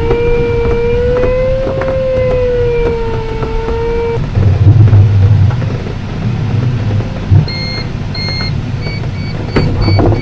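Glider cockpit: the variometer's steady audio tone, wavering slightly in pitch, over the airflow noise, cuts off about four seconds in. Then the LS3's wheel touches down and rolls on grass with a loud low rumble and a thump, and short high electronic beeps sound near the end.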